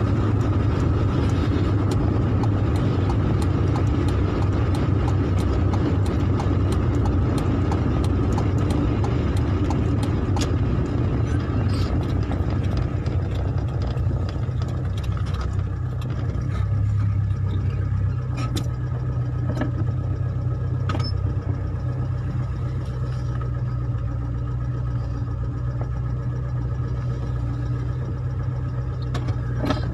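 Steady low hum of a car's engine and tyres heard from inside the cabin, dropping a little in level about halfway through as the car slows in traffic, with scattered faint ticks.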